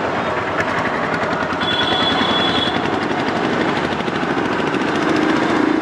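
Motorcycle engine running and accelerating from low speed through traffic, heard through a handlebar-mounted GoPro as a dense, rapidly pulsing roar.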